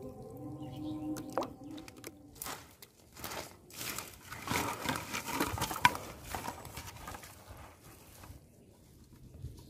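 Uneven crunching and crinkling of trampled dry weeds and thin plastic bottles as a person steps through the vegetation and handles and sets down the bottles. It is loudest in the middle, with one sharp click, and dies away near the end. Faint steady tones come before it.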